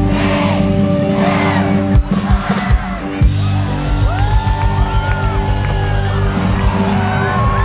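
Loud music over a cheering, whooping crowd, with several sharp fireworks bangs about two to three seconds in.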